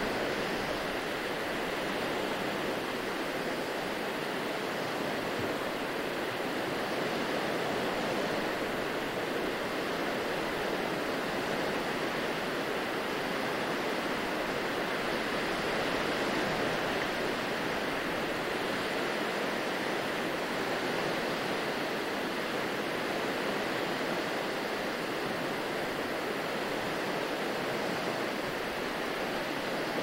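Ocean surf: small waves washing onto a sandy beach, an even, steady hiss of water.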